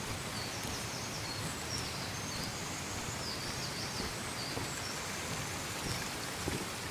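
Steady rush of flowing water, with a small bird's short, high chirping notes over it for the first few seconds.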